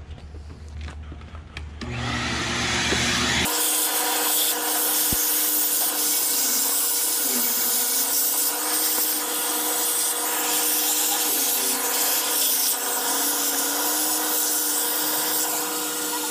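Shop vacuum running, sucking dirt out from under the removed intake of a 6.0 LS V8, a steady motor whine and airy hiss whose pitch dips and wavers as the nozzle meets debris. It comes on loud about three and a half seconds in and cuts off at the very end.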